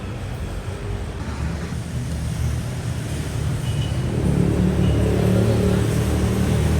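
Motor vehicle rumble with road traffic noise, swelling louder about four seconds in.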